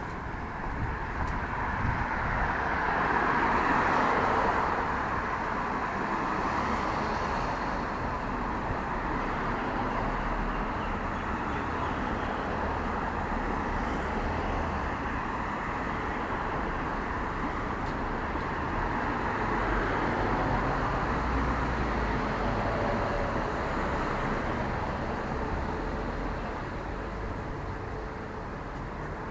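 City street traffic: vehicles passing on the road in a steady wash of noise, with one going by loudest a few seconds in and another a little past two-thirds through.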